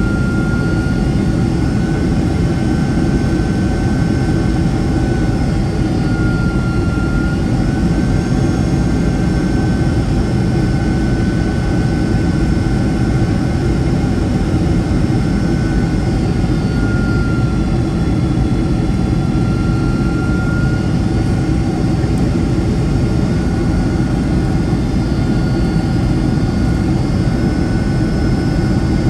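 Cabin noise inside a Boeing 757-200 in flight: a steady low rumble of the jet engines and airflow, with a thin engine whine that drifts slightly up and down in pitch, dipping briefly a few times.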